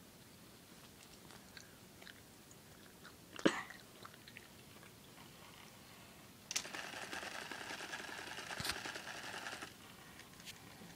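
Sony Aibo robot dog moving: faint clicks, a sharper click about three and a half seconds in, then about three seconds of crackly whirring from its servo motors with a click in the middle.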